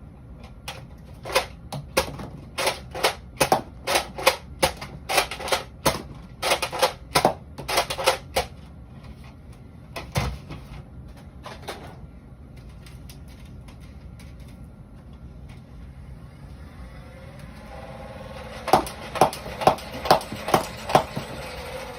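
Nerf foam-dart blasters being test-fired: a string of sharp clacks and pops, about two a second, through the first eight seconds or so, then two single shots. Near the end a motor whirs up and about seven darts fire in quick succession.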